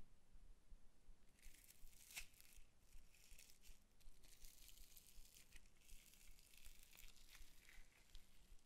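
Faint crinkling and crackling of a thin plastic cup and the tiny foam beads inside it as fingers press and squeeze them, with small irregular clicks. It starts about a second and a half in.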